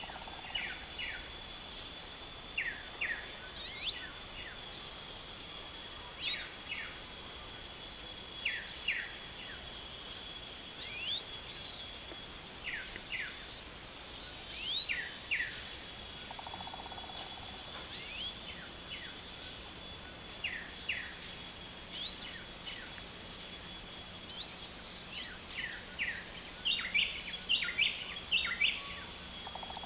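Blue-black grassquits (tiziu) singing short, upward-sweeping song phrases, repeated every two to three seconds. A steady high insect drone runs behind them, and a quick run of short chirps comes near the end.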